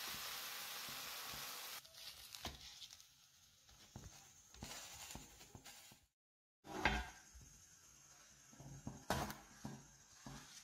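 Crepe frying in a hot pan, a steady sizzle for the first two seconds, then light clicks and knocks from a pan and plate being handled, with a sharper knock about seven seconds in.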